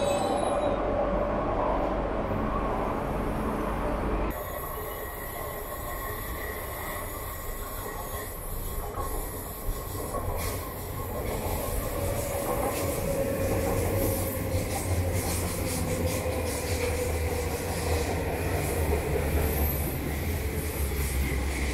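Marmaray electric commuter train running into the station: the low rumble of wheels on rail builds as it nears, and the wheels give a long squeal that falls slightly in pitch as it slows alongside the platform.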